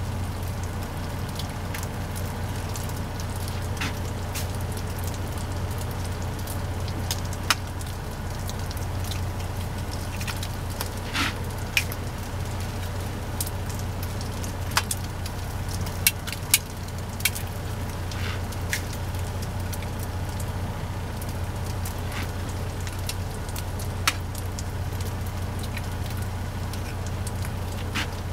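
Chorizo sizzling and crackling in a skillet, with scattered sharp pops and clicks, over a steady low hum.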